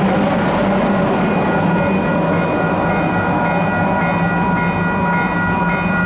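KiwiRail EF class electric locomotive passing and running away down the track: a steady rumble with thin high whining tones, some pulsing on and off.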